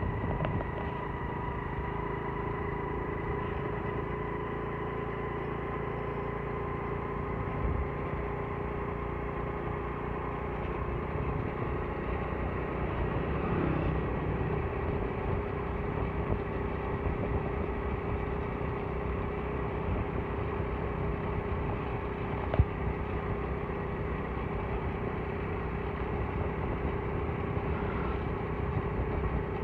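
Engine of a moving road vehicle running at a steady speed: an even hum over road and wind noise. Its pitch dips briefly about halfway through, and a single sharp tap stands out about three-quarters of the way in.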